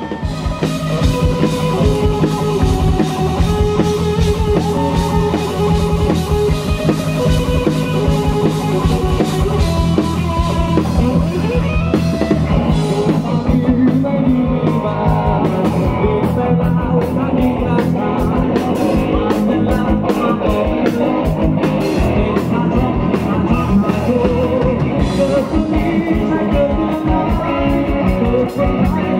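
Live rock band playing: electric guitar lines over bass guitar and a drum kit.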